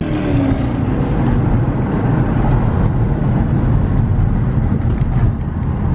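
A car engine running steadily with a deep, low rumble.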